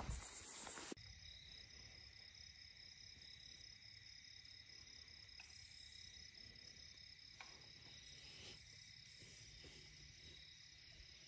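Faint steady chorus of crickets and other night insects, a few thin high tones held without a break. A short rustle in the first second stops abruptly, and there are a few light clicks later on.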